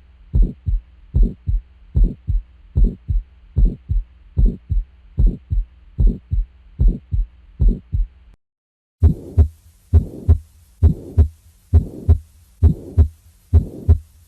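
Recorded heart sounds as heard through a stethoscope: a steady lub-dub heartbeat. After a short break about eight seconds in, a second recording follows in which a murmur fills the space between the heart sounds, the crescendo-decrescendo systolic murmur of aortic stenosis.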